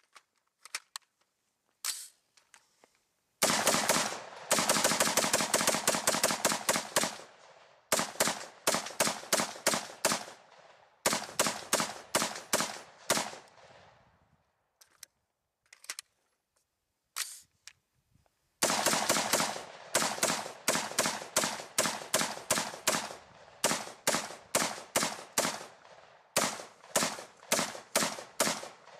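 AR-15 carbine firing long strings of rapid shots, about four to five a second, with brief pauses between strings and a few faint clicks before the first string starts.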